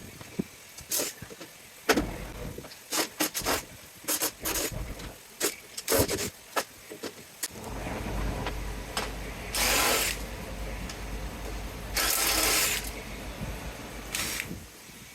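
Metal parts clicking and knocking as they are handled, then a small power-tool motor running steadily from about halfway, with two louder bursts of grinding noise.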